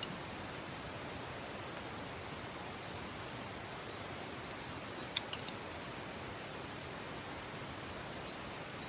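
Wood campfire burning against a steady hiss, with one sharp pop about five seconds in followed by a couple of fainter pops.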